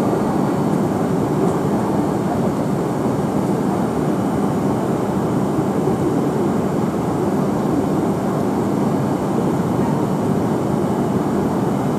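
Steady, unchanging hum of E5 series Shinkansen trains standing at the platform with their onboard equipment running.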